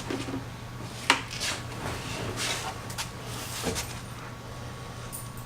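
A sharp click about a second in, then a few softer rustling and handling noises, over a steady low hum: someone getting back into the car, with no engine running yet.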